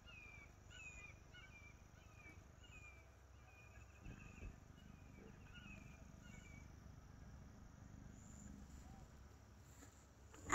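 Near silence with faint, high chirping calls repeated about twice a second from a small wild animal, stopping about six seconds in. A soft thump comes about four and a half seconds in.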